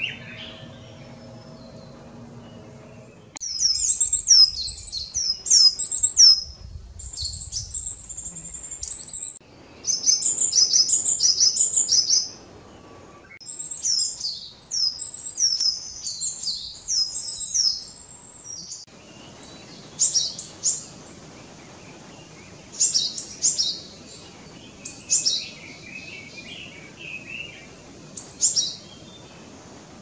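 Japanese tit singing: bursts of quick, high, falling notes in repeated phrases of a second or two. The song starts about three seconds in, after a faint steady hum, and thins to single notes in the second half.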